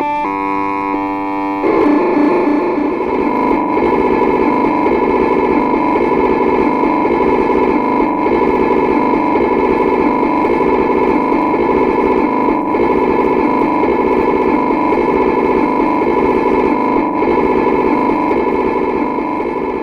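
Recorded sound of the LEO (Lyons Electronic Office) computer, a BBC sound effect. A quick run of stepped electronic tones gives way, about two seconds in, to a dense, rapidly warbling chatter of changing tones over a steady high tone.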